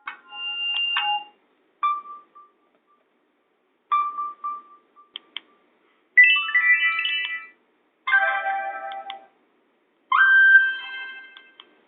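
Nokia 5800 XpressMusic ringtones playing through the small loudspeaker of a Nokia 220 4G phone: six short melodic snippets in a row, each cut off after about a second, with brief silences between them.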